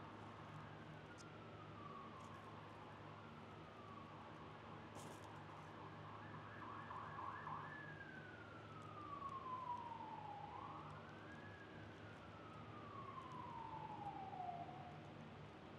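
Faint emergency-vehicle siren wailing in slow sweeps, mostly falling in pitch with one rise about ten seconds in, over a low steady hum. A single sharp click sounds about five seconds in.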